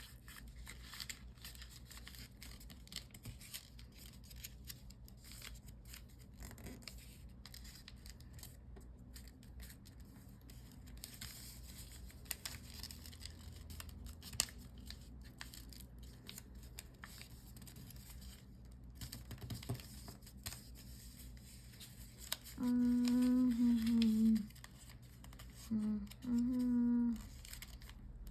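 Origami paper being folded and creased by hand: soft rustling and small crinkling clicks throughout. Near the end a person hums in two short stretches, louder than the paper.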